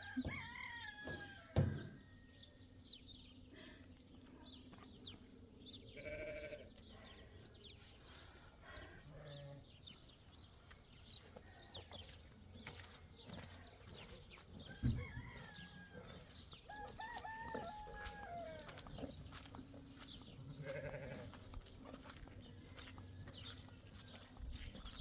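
Farm animals calling, goats bleating and a rooster crowing, with several drawn-out calls that bend in pitch and a few short ones, over scattered light clicks and knocks.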